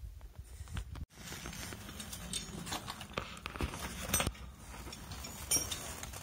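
Scattered clicks, taps and scuffs of climbing gear and shoes against sandstone rock as climbers move down a narrow slot canyon, with handling noise on the phone's microphone. The sound cuts out briefly about a second in.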